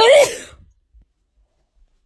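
A single loud sneeze, a sudden voiced burst about half a second long at the very start, from an allergic sneezing fit.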